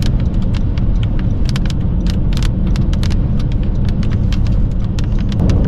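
Steady road and wind rumble heard inside a moving car, with many sharp, irregular ticks of small debris striking the car.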